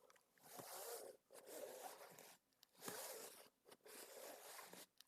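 A book being slid against its cover, making about four rasping, zipper-like swishes in a row with short pauses between.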